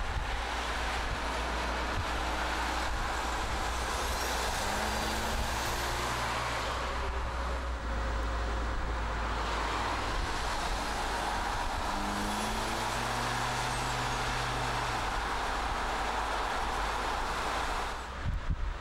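Car driving at road speed: steady tyre and wind noise, with an engine note that climbs briefly twice, about five seconds in and again about twelve seconds in.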